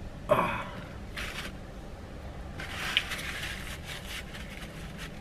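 A short voiced mouth sound falling in pitch about a quarter second in, then soft scraping and paper rustling with a sharp crinkle about three seconds in and faint clicks, from a person picking food out of braces with a floss pick and handling a paper wrapper.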